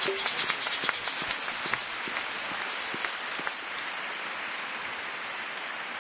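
Arena crowd applauding at the end of a figure-skating program. A rhythmic clap-along carries on for the first two or three seconds, then fades into steady general applause.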